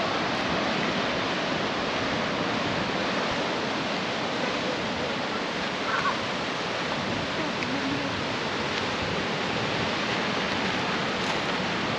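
Steady rushing noise of strong coastal wind and surf, with the wind buffeting the microphone.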